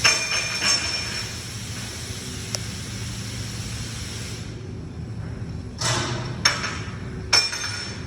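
Excavator engine running steadily, with several sharp metallic clanks, three of them close together near the end.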